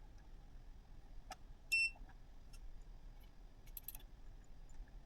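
A single short electronic beep a little under two seconds in, among faint clicks and light handling noise over a low hum.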